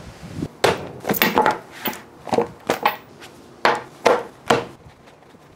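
Knives and a leather knife roll being laid out on a wooden butcher-block cutting board: about ten sharp knocks and clatters at uneven intervals.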